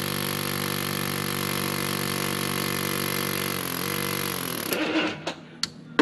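Pneumatic air hammer running steadily against the housing of a Stanadyne DB2 diesel injection pump, meant to shake apart the pump's stuck plungers. Its pitch sags about three and a half seconds in and it stops near five seconds, followed by a few light clicks.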